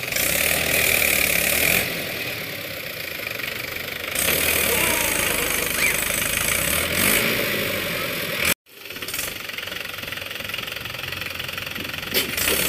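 Mahindra tractor's diesel engine running steadily under load as it hauls a trailer loaded with soil. The sound drops out for an instant about two-thirds of the way through.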